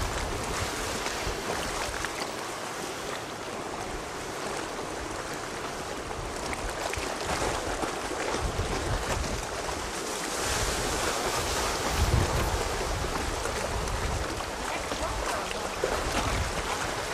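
Wind buffeting the camcorder microphone in uneven low gusts, the strongest about twelve seconds in, over the steady rush of a choppy, wind-whipped sea.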